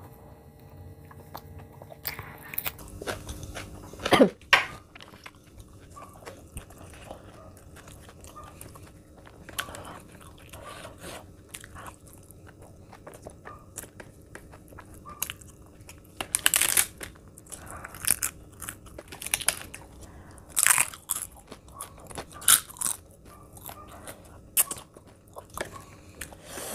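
Close-miked eating: a person chewing mouthfuls of rumali roti and shahi paneer, with wet mouth clicks, lip smacks and crisp crunches coming irregularly. The loudest is a sharp smack about four seconds in, and there is a busier run of them a little past the middle.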